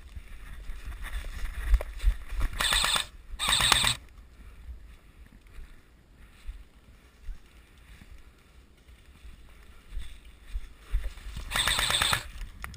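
Airsoft electric rifle firing three short full-auto bursts: two close together a few seconds in, one near the end. Between the bursts, low uneven rumble and handling thumps of the player moving.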